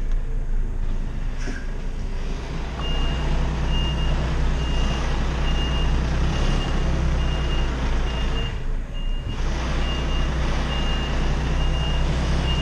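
Semi-truck's diesel engine running low while its reversing alarm beeps at an even pace, the high beeps starting about three seconds in, as the rig is backed toward a loading ramp.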